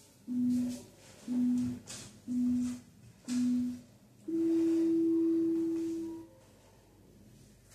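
Workout interval timer beeping: four short beeps about a second apart, then one long, higher beep lasting about two seconds. This is the countdown that marks the switch to the next exercise interval.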